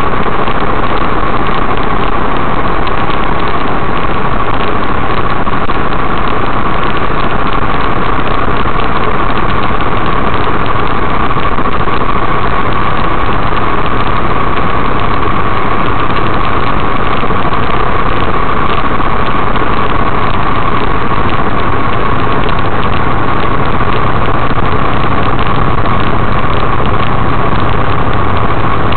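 Steady engine and road noise inside a truck cab cruising on the highway, heard through a dashcam microphone, with a constant high whine running through it.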